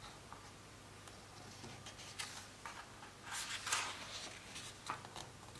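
A hardback picture book's paper page being turned by hand: several soft rustles and a flick, the loudest about three and a half seconds in, with a faint steady low hum underneath.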